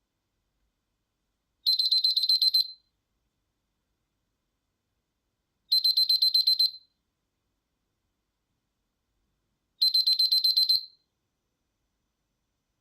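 Nokia Asha 503 alert tone in the style of an alarm clock: three bursts of rapid high-pitched beeps, about ten beeps a burst, each burst about a second long and some four seconds apart.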